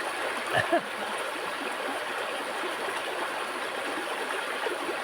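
Stream water flowing steadily, with one brief short sound just under a second in.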